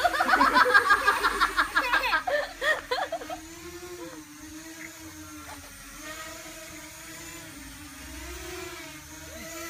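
A small quadcopter's electric motors and propellers hum steadily, the pitch wavering slowly up and down as it hovers and manoeuvres. Loud excited laughter is louder than the hum for about the first three seconds.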